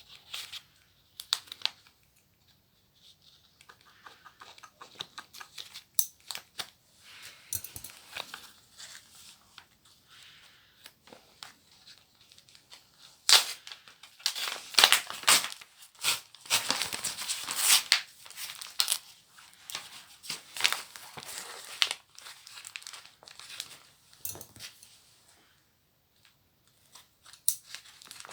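Parcel packaging being unwrapped by hand: paper or wrapping torn open and crumpled, with sharp snips and clicks among the rustling. The handling is irregular, busiest and loudest in the middle stretch.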